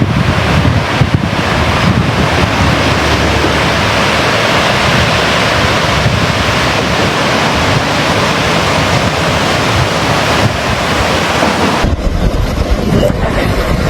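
Floodwater in a swollen river rushing past, a loud, steady roar with wind buffeting the microphone. About twelve seconds in it cuts abruptly to a different, low rumbling sound.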